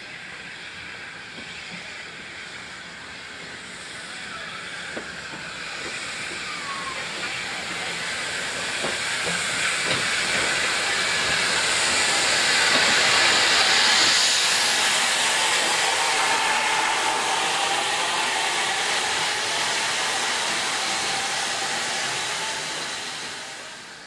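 Steam locomotive releasing steam: a loud hiss that builds over about ten seconds, peaks and then holds steady.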